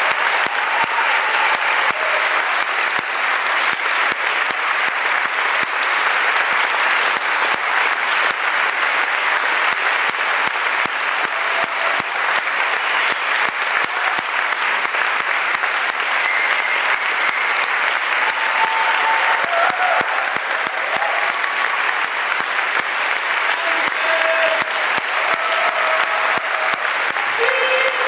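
Audience applauding steadily, a dense, even clapping that keeps up without letting off.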